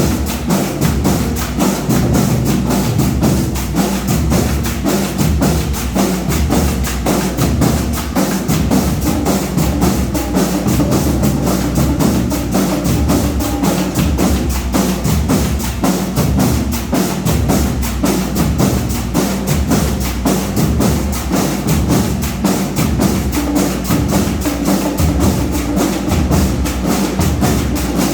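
Marching band playing, led by its drums beating a fast, steady rhythm without a break.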